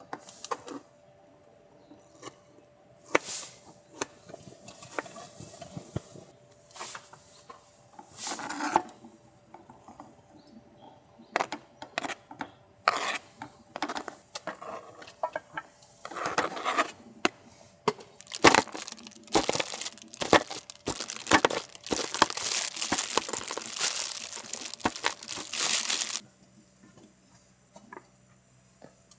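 Coffee beans crunching in a hand grinder, at first in short scattered bursts, then in a dense run of rapid crackling that stops suddenly near the end.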